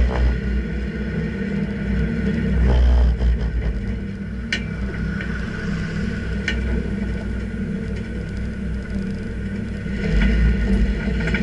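Car driving, heard from inside the cabin: a steady low engine and road rumble, with two short sharp clicks about two seconds apart near the middle.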